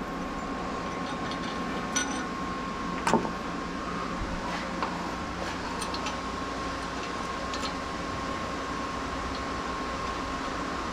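Steady mechanical hum with a thin, even high tone running through it, and a couple of light clicks about two and three seconds in.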